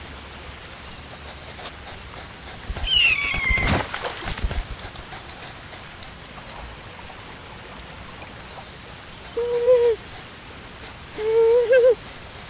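A cat meowing twice near the end, two short, level-pitched calls. Earlier a brief high falling yelp ends in a splash, over the steady hiss of a pond fountain.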